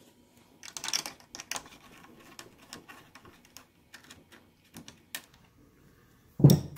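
Light clicks and ticks of a T25 Torx screwdriver backing out M5 screws from a plastic motorcycle body panel, with the panel shifting against its fittings, and a louder bump near the end.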